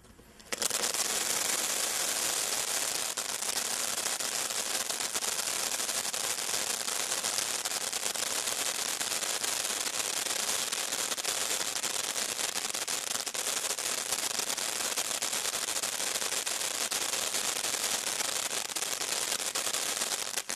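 Brothers 'Little John' 200 g firework fountain spraying sparks with a dense, continuous crackle. It starts about half a second in, holds steady and dies away near the end.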